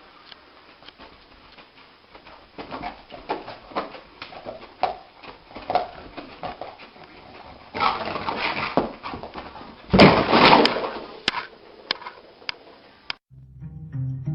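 An animal's sounds: a string of short, noisy snuffles and clicks, with two louder stretches about eight and ten seconds in. The sound cuts off abruptly near the end.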